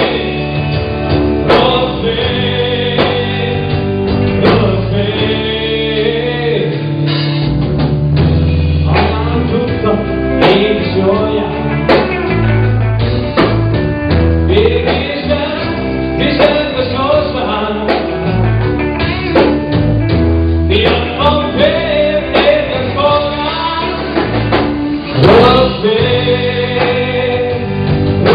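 Live blues-rock band playing, with electric guitars, bass guitar and drums, and a man singing lead.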